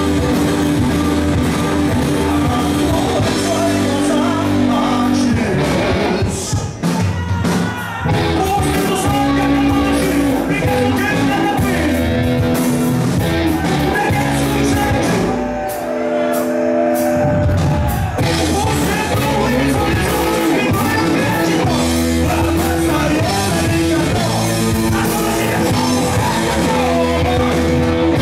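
A rock band playing live: electric guitars and bass with a lead singer at the microphone, and the crowd singing along. The low end drops out briefly twice.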